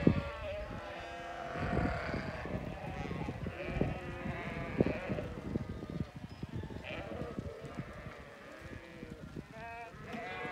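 A flock of sheep bleating, many calls overlapping one another without a break.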